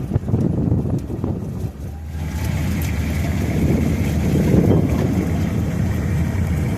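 Strong wind buffeting the microphone, a heavy, uneven low rumble that eases briefly near the two-second mark and then builds again.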